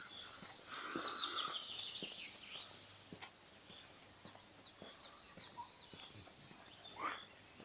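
A songbird singing two phrases of quick, high chirping notes that step down in pitch, one at the start and one about halfway through, with a few faint clicks.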